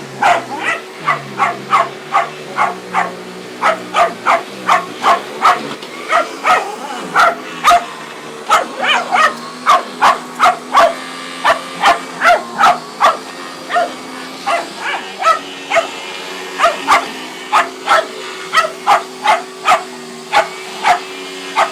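Shetland sheepdog barking over and over, about two barks a second, over the steady hum of a running vacuum cleaner.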